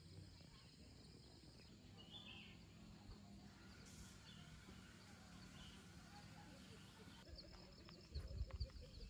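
Quiet outdoor ambience with a few faint, short bird chirps over a soft background hiss and a faint steady high tone. A few low thuds come near the end.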